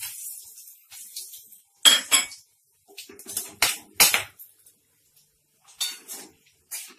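Cooking spoon striking and scraping against a metal pan in about seven sharp clinks, the loudest about two seconds in and around four seconds in, as whole spices are stirred in hot oil.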